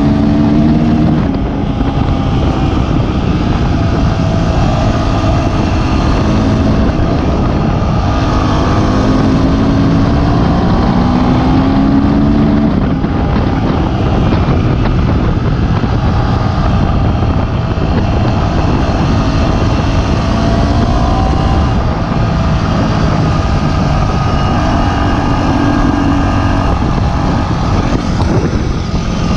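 Dirt bike engine running as the bike rides along a dirt track, its pitch rising and falling with the throttle, under a heavy low rumble of wind and ground noise.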